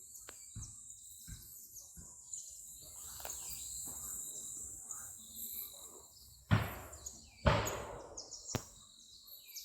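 Footsteps on a forest trail, with two louder crunching steps about two-thirds of the way in, over a steady high-pitched chirring of insects.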